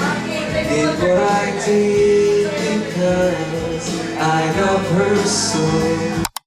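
Song with singing and guitar playing, which cuts off abruptly near the end.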